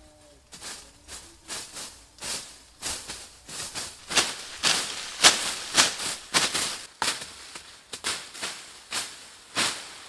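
Two people hacking and slashing at undergrowth with bladed hand tools, a quick, uneven run of swishing, crunching strokes through leafy plants and soil, about two or three a second.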